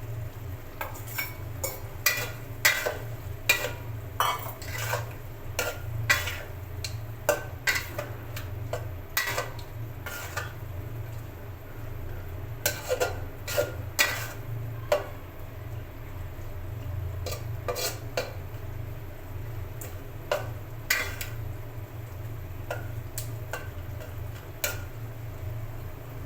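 A cooking spoon stirring food in a pot, scraping and clinking against the pot in irregular strokes over a steady low hum.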